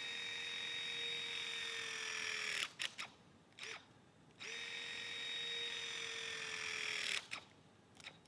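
Milwaukee M18 FORCE LOGIC 6T battery-powered hydraulic crimper running through two crimp cycles. Each time the motor runs steadily for about three seconds, its pitch sags slightly at the end, and a few sharp clicks follow.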